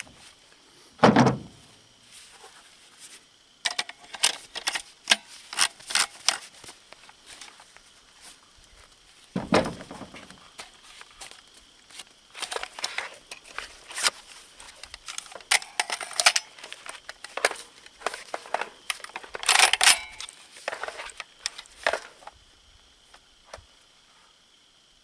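Two suppressed shots from an FN SCAR rifle, one about a second in and one about nine and a half seconds in. Between and after them come many short, sharp clicks and rattles.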